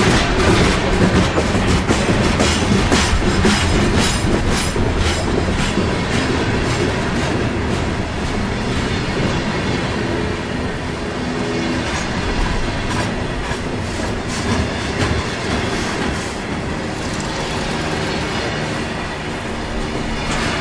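Freight train of coal hopper cars rolling past close by: a steady rumble of steel wheels with a run of clicks as they pass over the rail. A faint squeal of wheel flanges comes in now and then in the second half.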